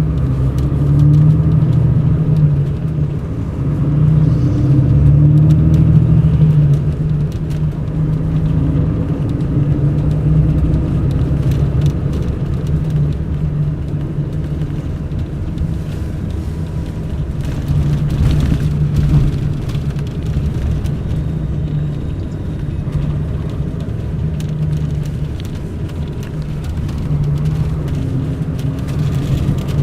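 Mercedes-Benz O500 RSD BlueTec5 coach's diesel engine running as the bus drives, heard from on board: a steady low drone that swells and eases every few seconds as the revs change.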